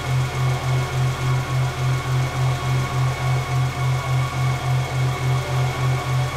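Pop-top roof of an expedition truck being raised by its lifting mechanism: a steady low mechanical hum that pulses evenly about three times a second.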